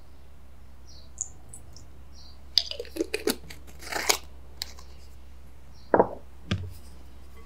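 Handling sounds from pouring vanilla extract out of a small glass bottle into a glass mixing bowl and putting the bottle away: a cluster of light clicks and a short rustle midway, then two louder knocks about six seconds in, over a steady low hum.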